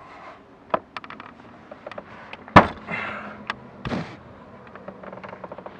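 Hands working a car's footwell carpet and trim panel: scattered light clicks, one sharp knock about two and a half seconds in, and short scraping or rustling of the covering.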